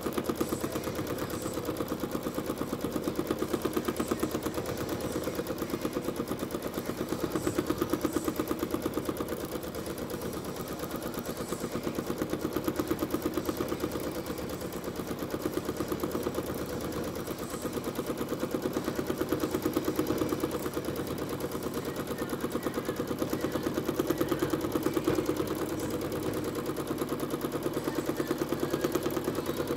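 Janome Skyline S9 sewing machine running continuously during free-motion quilting, its needle making a rapid, even clatter of strokes that speeds up and eases off a little as the quilt is moved under the foot.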